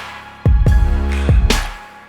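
Background music with a beat of deep, booming kick drums and bass, which drops out near the end.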